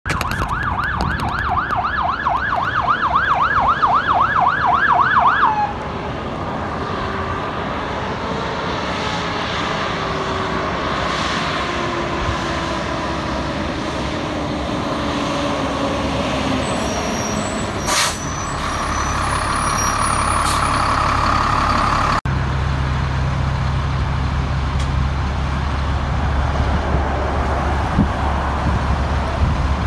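Fire engine siren on a fast yelp, about four warbles a second, cutting off about six seconds in; a lower siren tone then slowly falls as it winds down. Near the end the fire engine's diesel engine drones low and loud close by as the truck turns in past.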